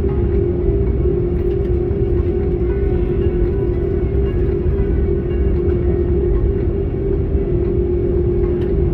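Airbus A330-200 cabin noise while taxiing: the jet engines running at low taxi power make a steady hum over a constant low rumble.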